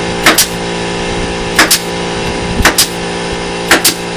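Pneumatic nailer driving nails into plywood, firing four times about once a second, each shot a quick double crack, over a steady hum.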